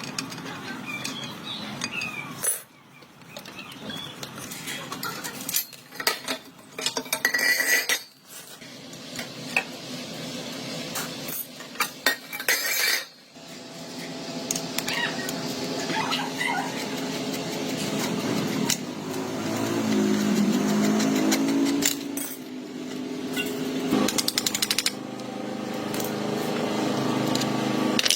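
Workshop tool sounds: metal parts and hand tools clinking and knocking, with several abrupt cuts. From about halfway through, a steady motor runs, its pitch rising briefly.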